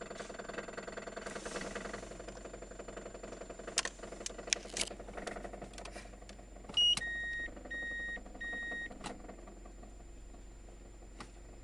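Toyota 3S-GTE turbocharged four-cylinder engine running with a fast, even knocking. A few sharp clicks come a little before the middle, then three short electronic beeps, the loudest sound.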